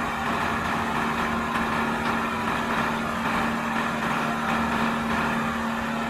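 Renault heavy dump truck's diesel engine running steadily at an even speed, with a constant hum.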